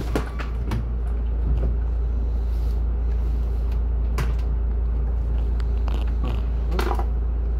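A city bus's engine runs with a steady low rumble, heard from inside the passenger cabin. A few short clicks or rattles break through now and then.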